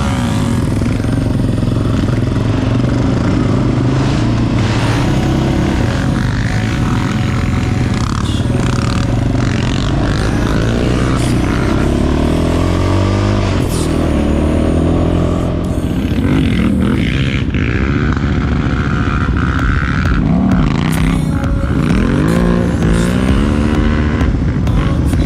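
Quad (ATV) engine running under way, its pitch rising and falling again and again as the throttle is worked, with occasional knocks and clatter from the ride.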